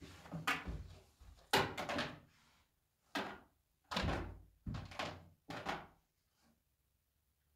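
A dog's paws stepping into and shifting about in a plastic tub: a run of irregular knocks, ending about six seconds in.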